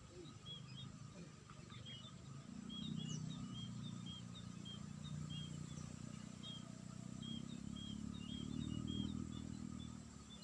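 Small birds chirping over and over in quick short notes, over a faint steady insect-like whine. A low hum swells about two seconds in and fades near the end.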